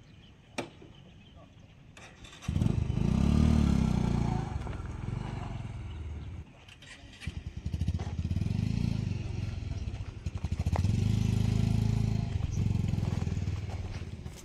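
A motorcycle engine close by, starting about two and a half seconds in and running at a low putter. It drops briefly around six and a half seconds, then picks up again with a quick run of pulses and keeps running.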